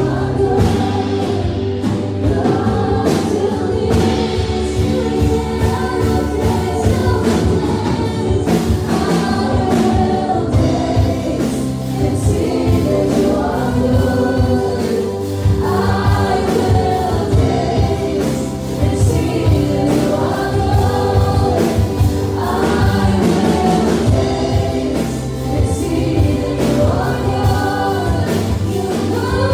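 Live worship band playing: several women singing together over keyboard, bass guitar, drums and acoustic guitar.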